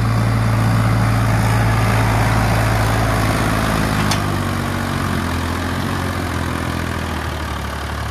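Mahindra tractor's diesel engine running steadily while hauling a heavily loaded trolley, the load enough to lift its front wheels. The engine note changes about three seconds in, and a brief sharp click comes about four seconds in.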